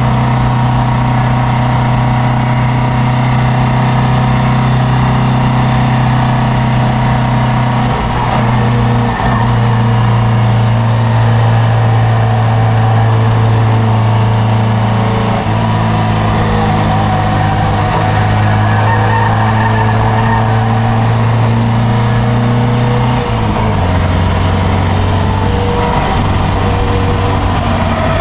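Triumph Dolomite Sprint's 2.0-litre 16-valve slant-four engine running hard under load, heard from inside the cabin, with road and wind noise. The loud, steady engine note breaks and shifts pitch several times.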